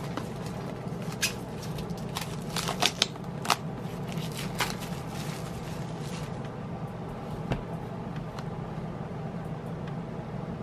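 Hands handling a boxed album's card and plastic packaging: scattered crinkles, taps and clicks over roughly the first six seconds, then only one or two, over a steady low background hum.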